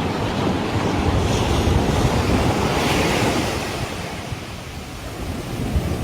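Sea surf breaking and washing up a sandy beach, with wind buffeting the microphone. One wave swells up about halfway through, then eases off.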